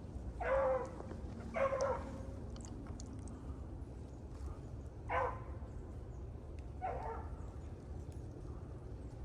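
Beagle hound baying, giving four short barks spaced a second or more apart, as beagles do when running a rabbit's track.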